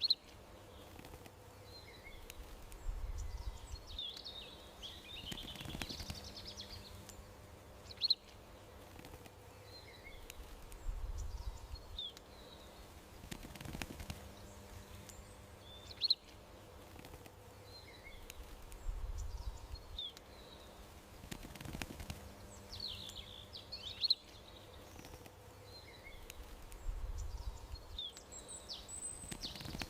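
Small songbirds chirping and twittering, with a sharp high call coming back about every eight seconds over a faint steady hum.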